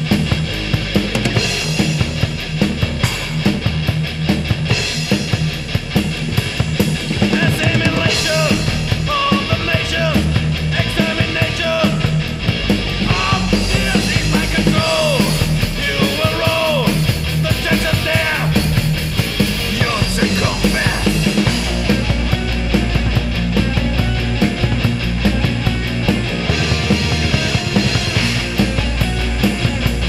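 Thrash/heavy metal band recording: distorted guitars over fast, steady drumming, with a lead line sliding up and down in pitch through the middle.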